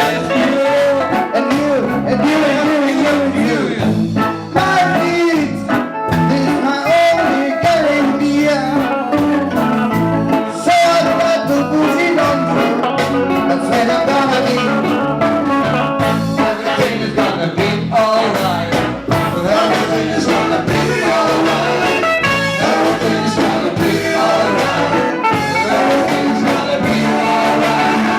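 Live reggae band playing a song, with guitar and a singer's voice.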